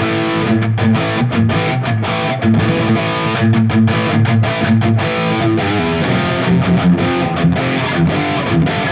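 Electric guitar through a high-gain Mesa Rectifier-style amp model on a Valeton GP-200 modeler, playing a fast distorted riff with many sharp picked attacks.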